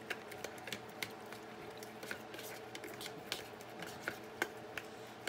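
Fork whisking egg wash in a bowl: irregular light clicks and taps of the fork against the bowl, over a faint steady hum.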